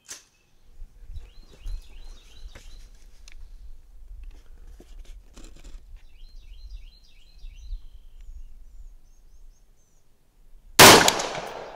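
A single loud rifle shot from a scoped AR-style service rifle near the end, sharp, with a ringing echo trailing off over the range.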